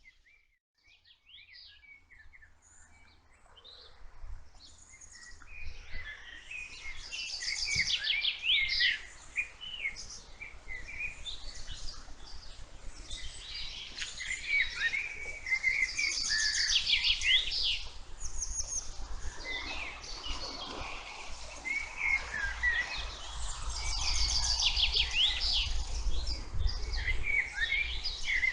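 Several songbirds singing and calling at once, with many short chirps and fast high trills recurring every few seconds. The birdsong rises out of near silence over the first few seconds.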